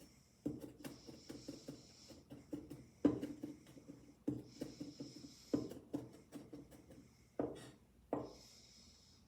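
Kitchen knife rapidly chopping garlic on a cutting board: quick light taps, several a second, with a heavier chop every second or so and a few brief scraping sounds in between.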